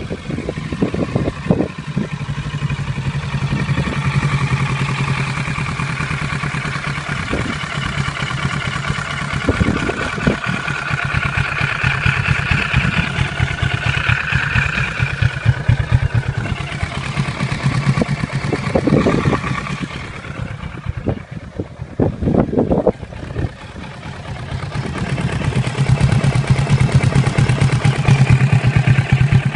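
Kawasaki Z650 motorcycle engine idling steadily. Its level dips for a few seconds about two thirds of the way through, then comes back louder.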